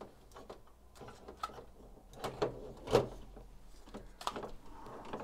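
Hard plastic parts of a large transforming robot figure clicking and knocking together as hands try to fit its tabs into place. The knocks come scattered, the loudest about three seconds in.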